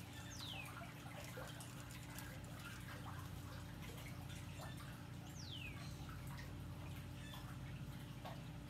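Faint background: a steady low hum with a light trickle of water, and two high whistled bird calls, each falling in pitch, about five seconds apart.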